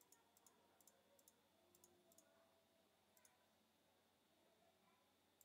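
Near silence with a handful of faint, irregularly spaced computer mouse clicks.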